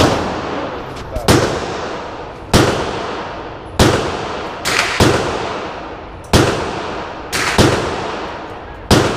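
Gunshots on a shooting range, about ten in all, roughly one a second at uneven spacing, with two pairs fired close together. Each shot cracks sharply and then fades in a long echoing tail.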